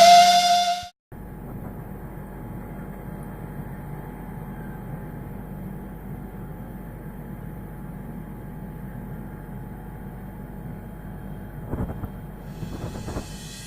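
Noisy household refrigerator running: a steady mechanical hum with a faint whine in it, and a few clicks or knocks near the end.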